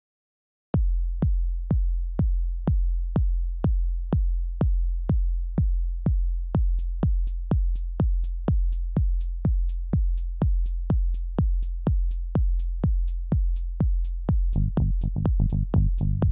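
Electronic drum loop: a steady kick drum about twice a second, with a crisp hi-hat tick joining about seven seconds in. A pitched synth bass line comes in near the end.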